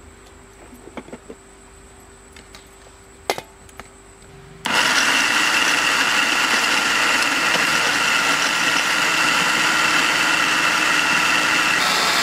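Electric mixer grinder with a steel jar: a few light clicks and a sharp knock as the jar is set in place, then about four and a half seconds in it is switched on and runs steadily with a whine, grinding crumbled bread.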